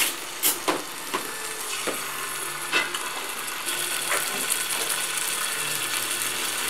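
Curry paste sizzling as it fries in hot oil in a stainless steel pan. In the first three seconds there are several sharp clicks of a spoon and a wooden spatula against the pan as the paste is scraped in.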